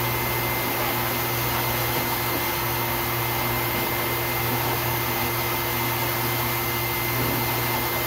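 Pet blow dryer blowing air steadily through its hose onto a wet dog's coat: a loud, even rush of air with a steady hum and whine.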